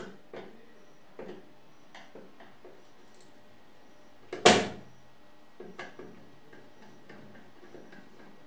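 Screwdriver working the screws that hold a DVD optical drive in a steel desktop PC case: small scattered clicks of tool and screw against the metal chassis. One much louder sharp knock comes about halfway through.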